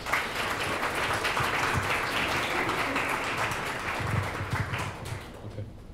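Audience applauding: many hands clapping at once in a dense, even clatter that thins out near the end.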